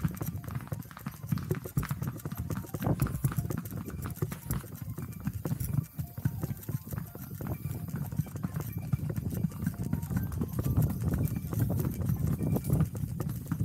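Ridden horse's hooves clopping steadily on a dirt trail.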